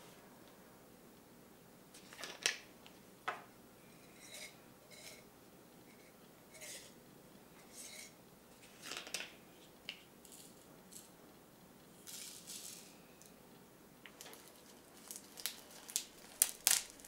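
Quiet handling of a small spice jar over a plastic cutting board: scattered light clicks, knocks and rattles as the jar is opened and shaken and its lid is set down, with a quick run of sharper clicks near the end.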